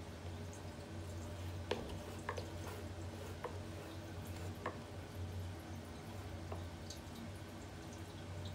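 Bathroom exhaust fan motor running with a steady low hum, with about half a dozen light, irregular clicks and ticks over it.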